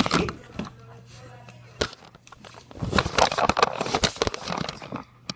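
Microphone handling noise as the phone is swung and rubbed about: knocks and clicks near the start, then a loud stretch of crackling and rustling from about three to four and a half seconds in.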